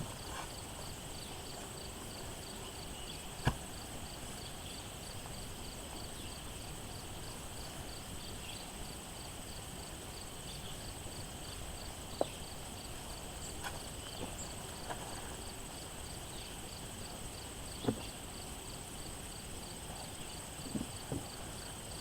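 Steady high chirring of insects, one part of it an evenly pulsing trill. A few short knocks break through it, the sharpest about three and a half seconds in and near eighteen seconds, with a small cluster near the end.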